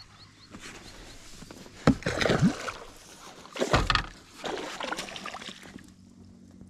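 Several short bursts of water splashing and knocking against a small boat, the loudest near the second and fourth seconds.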